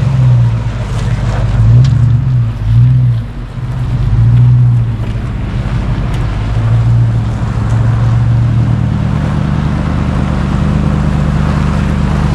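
Truck engine revving up and easing off several times, then running steadily under load, its pitch stepping up a little about eight seconds in.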